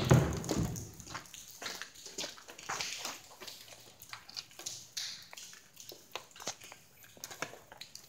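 Footsteps on a wet, debris-strewn concrete floor: irregular crunches, scuffs and small splashes, with a heavier step in the first second.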